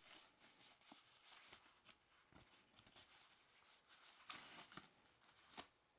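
Faint rustling and crinkling of a thin white foam packaging sleeve as a small plastic adapter is slid out of it, with scattered small clicks and a slightly louder rustle a little over four seconds in.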